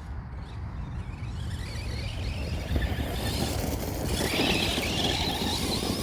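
Arrma Granite 4x4 3S BLX 1/10 scale brushless RC car driving on gravel: the high whine of the brushless motor and drivetrain over the tyres' crunch on the stones, getting louder about three seconds in.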